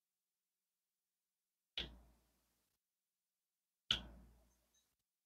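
Two sharp taps about two seconds apart, each dying away within half a second, from a diamond-painting drill pen and tray at work on the canvas.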